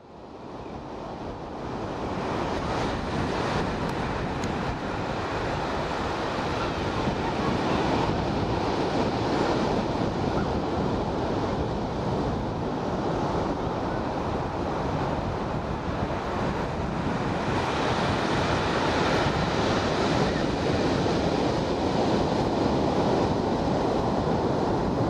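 Steady wind and breaking ocean surf, with wind buffeting the microphone; the sound fades in over the first couple of seconds.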